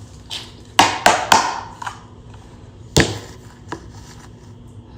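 Sharp knocks and taps of objects being handled and set down close to the microphone: three in quick succession about a second in, then a louder single knock near three seconds.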